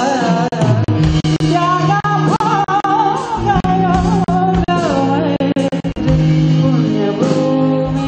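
Male singer singing a gliding, ornamented melody into a microphone over a live band, with steady sustained bass notes and repeated drum hits.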